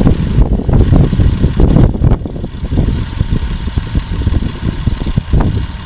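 Tractor engine running steadily under load while it pulls a hydraulically driven, trailed single-row potato harvester, with a loud, uneven rumble of machinery.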